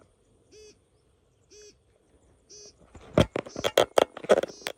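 A faint short call repeats about once a second, then about three seconds in a run of loud sharp knocks and clatter begins and continues to near the end.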